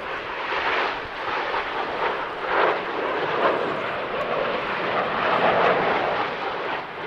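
Jet engine noise from Aermacchi MB-339 aircraft flying past: a rushing noise that builds over the first second, then stays loud and swells a few times.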